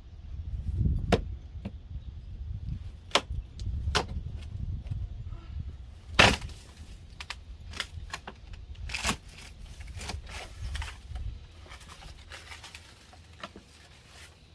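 Irregular knocks, cracks and tearing of old wood being pried and broken out of a wall, the sharpest crack about six seconds in, over low rumbling handling noise.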